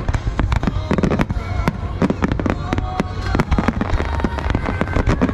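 Fireworks going off in rapid succession: a dense run of sharp bangs and crackles, many a second.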